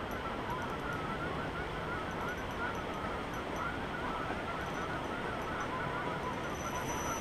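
Distant waterfowl calling over the water in a continuous, wavering chatter, over a steady outdoor hiss.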